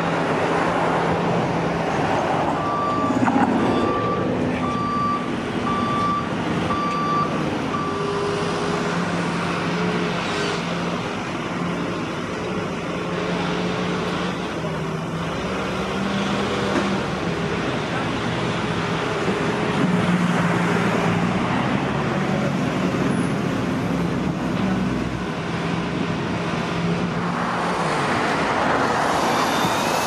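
Heavy vehicle engines running steadily amid traffic noise on a construction site. A reversing alarm beeps about six times at an even pace from about three to eight seconds in.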